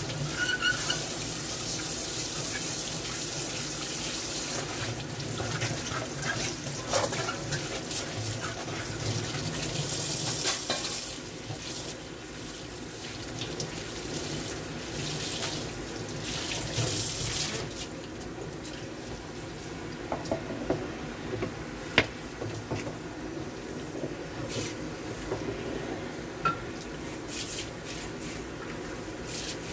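Kitchen tap water running and splashing into a stainless steel sink as dishes are rinsed by hand. The flow is louder in the first third and softer after, with a few sharp knocks of metal ware against the basin, the loudest about two thirds of the way in.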